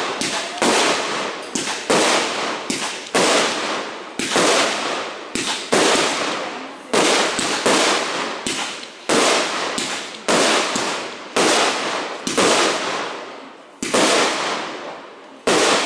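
Aerial fireworks bursting in quick succession: a steady series of sharp bangs, about one a second, each trailing off before the next.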